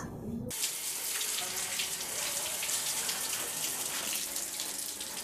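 Water running from wall taps and splashing as hands and faces are washed under them. It starts about half a second in.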